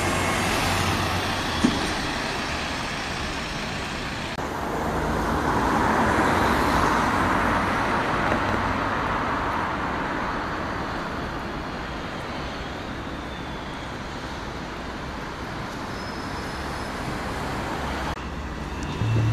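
Diesel buses and road traffic passing in the street. A double-decker bus's engine runs close by at first; later a vehicle swells past and fades away.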